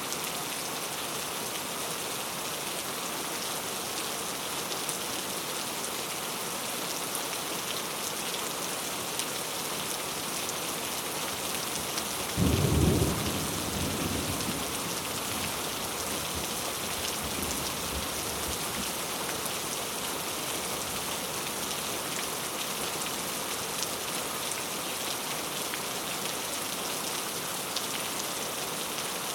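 Steady rain falling. About twelve seconds in, a single sudden clap of thunder peaks for about a second and then rumbles away over a few seconds.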